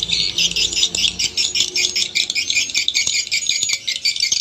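Recorded swiftlet lure calls played through two horn tweeters from a Piro MW-88 player: two different call tracks at once, one per channel, making a dense, rapid, high-pitched chirping with several chirps a second.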